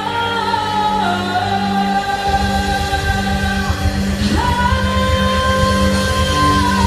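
Music with singing: long held sung notes that step up and down in pitch, with a low rhythmic pulse coming in about two seconds in.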